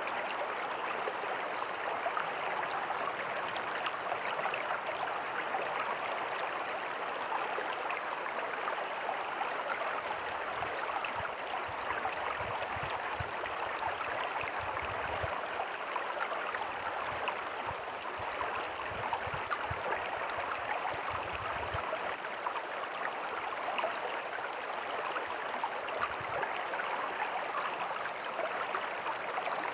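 Small creek and tiny waterfall flowing over rocks: a steady rush and splash of water, with a faint low rumble now and then in the middle.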